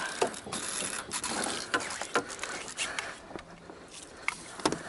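Irregular knocks and clicks of gear being handled in a small boat as a landing net is grabbed and put into the water during a fish fight.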